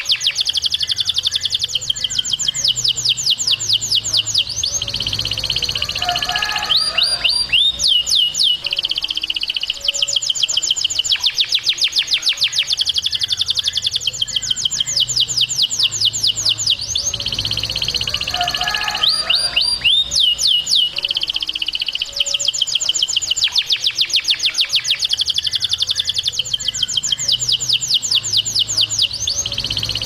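Male canary singing loudly. Long rapid trills of repeated high notes run several seconds each and are broken by a few falling slurred whistles. The same run of phrases comes round again about every twelve seconds.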